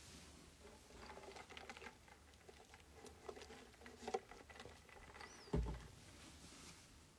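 Faint small clicks and rattles from a plastic cup and straw as a drink is sipped, then a single low thump about five and a half seconds in.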